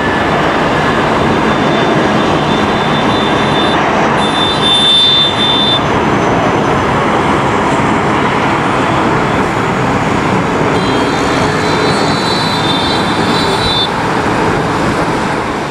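Jet engines of an Airbus A320-family airliner climbing out at takeoff power: loud, steady jet noise with no change in its run.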